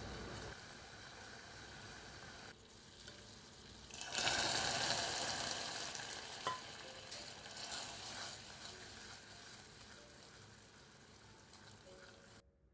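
Sugar syrup boiling in a stainless steel pot as it turns to caramel. About four seconds in the sizzle jumps sharply louder, as a spoonful of water hits the hot caramel, then fades slowly while the caramel is stirred.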